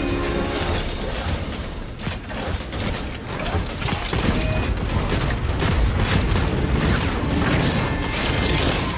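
Mechanical clanking, whirring and ratcheting of gun turrets rising out of a train roof and swivelling into position, with many short clicks and knocks over a continuous low rumble.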